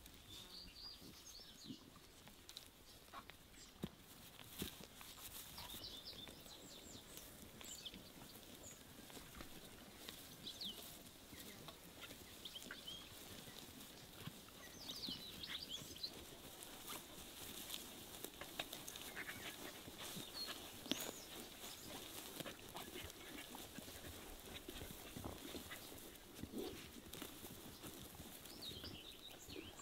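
Faint sounds of a grazing flock of sheep: occasional soft bleats and scattered short clicks, with many short high chirps throughout.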